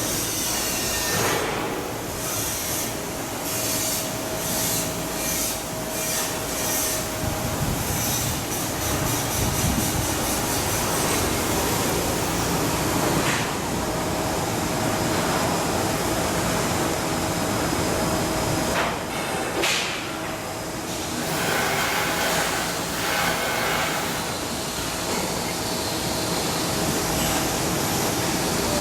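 Continuous shipyard work noise from steel fabrication tools: a loud steady hiss with a faint steady hum under it. In the first several seconds a run of fast, even strokes or rattling rides on top.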